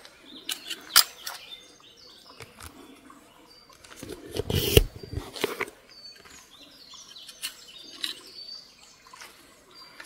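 Footsteps and rustling through grass and undergrowth, with scattered snaps and a louder spell of rustling about four to five seconds in, while a bird gives faint, short, high chirps now and then.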